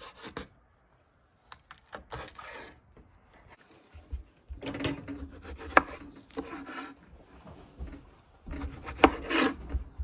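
Kitchen knife slicing through tomato and pepper on a wooden cutting board: scraping strokes and sharp knocks of the blade on the board. They come in two spells, one about five seconds in and one near the end.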